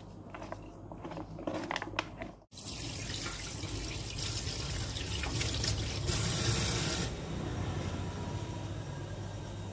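Soft clicks of fingers working food in a plastic bowl, then after a brief break about two and a half seconds in, a water tap running steadily, its flow easing off about seven seconds in.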